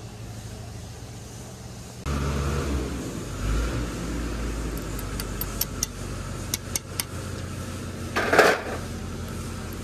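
An engine running steadily with a low hum, getting louder about two seconds in. A run of sharp metallic clicks follows in the middle, and there is a short loud rasp near the end.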